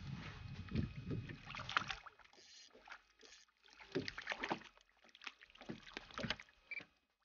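A hooked lavarello (lake whitefish) splashing at the water's surface beside the boat in irregular short bursts, mixed with small knocks and rustles from handling the rod and reel.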